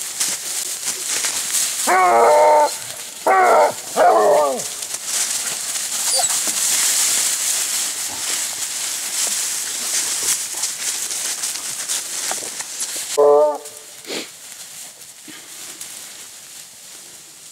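Pack of grand basset bleu hounds baying on a hare's scent: three long wavering bays close together about two to five seconds in, and one more about thirteen seconds in. Under them runs a steady rustle of dry leaves that falls away after the last bay.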